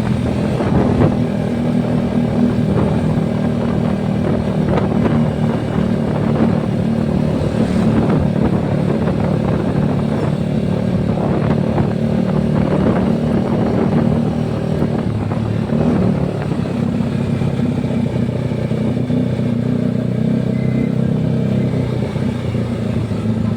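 Yamaha R15 V3's single-cylinder 155 cc engine running steadily while being ridden, a deep, even exhaust note with the revs dipping briefly about two-thirds through.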